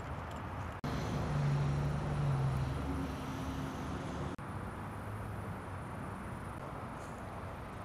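Steady outdoor background noise in a lakeside park, broken by two abrupt cuts; the stretch between the cuts is louder and carries a low steady hum, like a distant engine.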